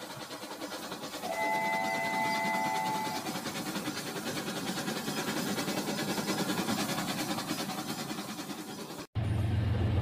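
Battery-powered toy steam locomotive running along plastic track with a fast, continuous clicking rattle from its wheels and motor, growing somewhat louder as it comes closer. About a second in, a chord-like train whistle sounds for nearly two seconds. Near the end the sound cuts abruptly to a steady low hum.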